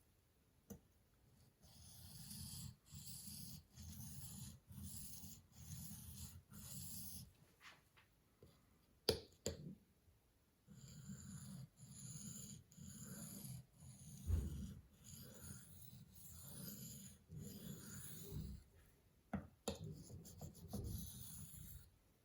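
Knife blade being stroked back and forth across a sharpening stone in steady runs of scraping strokes, a little under two a second, with a pause and a few sharp knocks between the runs.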